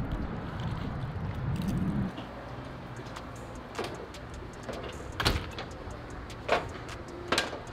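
Footsteps and knocks on a boat's deck as people step out of a cabin doorway: a handful of sharp thumps about a second apart, after a couple of seconds of low rumbling.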